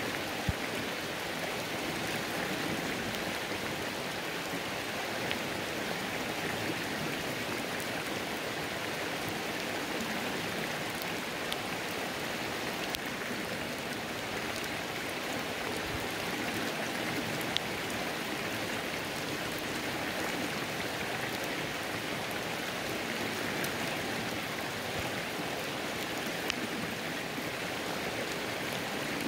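Rain falling on a creek: a steady wash of flowing water and rain, with scattered faint drop ticks throughout.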